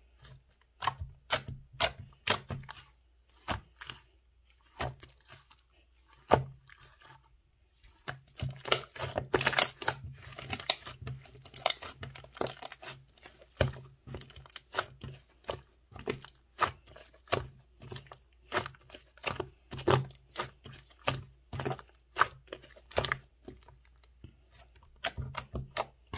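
Strawberry soft-serve-style slime being stretched, pressed and pulled apart by hand: an irregular run of sharp pops and crackles with tearing sounds, a few short quiet gaps between handfuls.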